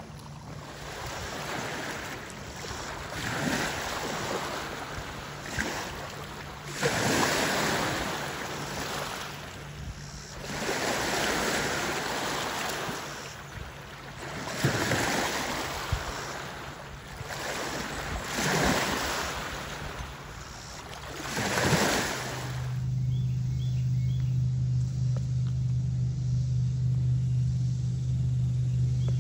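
Small waves washing in on a pebbly lake shore, each wash swelling and fading about every three to four seconds. About 23 seconds in this gives way to a steady low hum.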